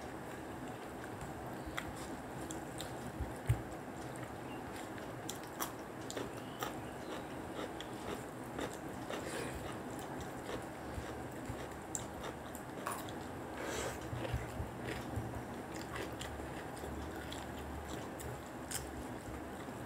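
Close-up chewing and biting sounds of people eating a rice meal by hand, with scattered small clicks of fingers and food against the plates and one sharper knock about three and a half seconds in.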